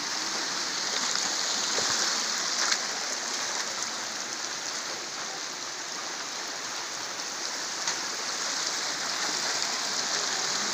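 Muddy flash-flood water rushing over loose slate stones, a steady rushing noise.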